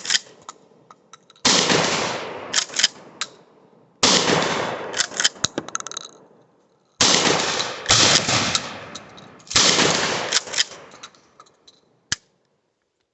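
Four shots from a Stevens 320 pump-action shotgun with an 18-inch barrel, about two and a half to three seconds apart. Each bang rings out and fades, and sharp clacks follow each one as the pump is worked to chamber the next shell.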